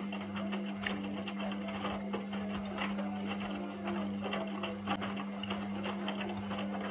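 Indesit washing machine turning its drum during a 90 °C boil wash: a steady motor hum with wet laundry sloshing and knocking as it tumbles.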